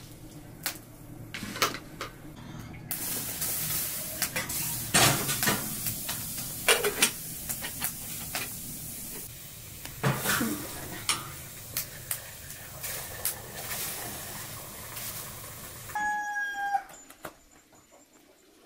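Kitchen handling sounds: clinks and knocks of a metal teapot, kettle and tea glasses, with water poured from an electric kettle making a steady hiss. Near the end the hiss stops and there is a brief pitched call.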